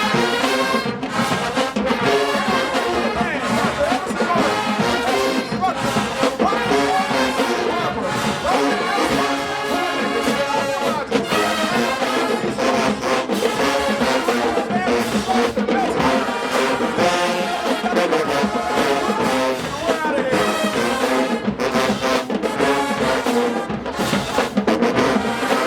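HBCU marching band brass section playing a loud, full-bodied tune, with trombones and trumpets carrying the melody over drums.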